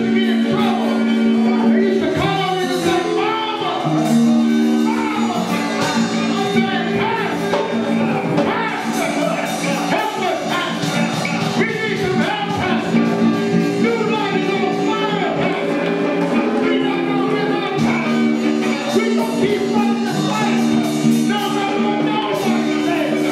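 Gospel music in a church: held keyboard chords under steady drum and cymbal hits, with voices singing and shouting over it.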